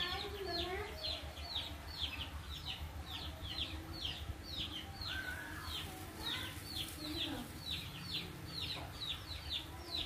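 A bird's high, short chirps, each sweeping downward, repeated evenly at about three or four a second without a break, with a few fainter, lower calls underneath.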